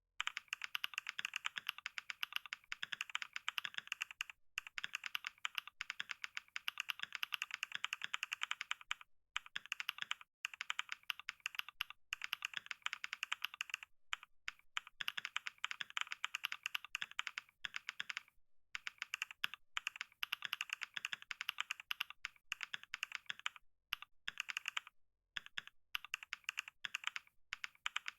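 Rapid, continuous typing on a computer keyboard: many key clicks a second that start suddenly, broken by a few short pauses.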